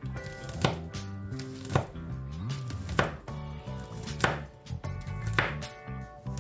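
A chef's knife chopping garlic cloves on a wooden cutting board: sharp knocks of the blade on the board about once a second, over soft background music.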